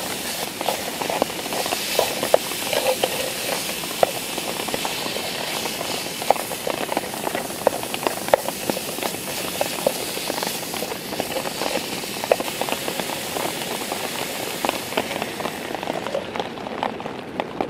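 Venison chili sizzling and bubbling in a pot on a camp stove, with rain pattering on the tarp overhead: a steady hiss strewn with many small irregular taps. Near the end the high hiss drops away.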